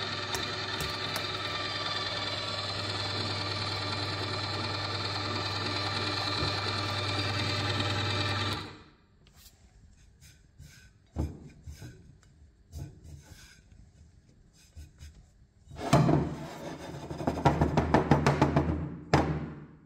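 Electric grinder motor running steadily with a low hum and a whine, cutting off about nine seconds in. A few light knocks follow, then the grinder runs again near the end, rougher and uneven, as it breaks up the chocolate and candy.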